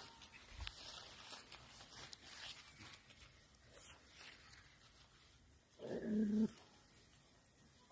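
English Cocker Spaniel puppies scuffling in grass, and about six seconds in one puppy gives a single short, low growl during rough play.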